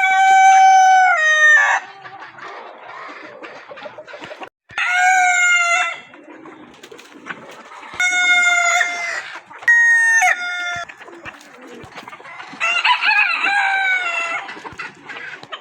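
Desi roosters crowing, five long crows in turn a few seconds apart, at different pitches from more than one bird. Hens cluck quietly in between.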